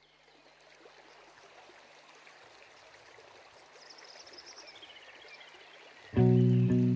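Faint sound of flowing water fading in and slowly growing, with a few high chirps in the middle. About six seconds in, music starts loudly.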